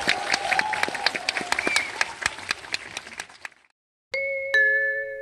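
Film music playing in a cinema with audience clapping, about five claps a second, fading out about three and a half seconds in. After a brief silence, a two-note falling chime rings out and dies away slowly.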